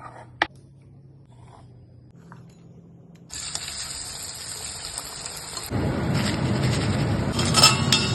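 Rice flour snack dough frying in hot oil: a steady sizzle starts suddenly about three seconds in and grows louder and fuller near six seconds. A single sharp click comes just before, about half a second in.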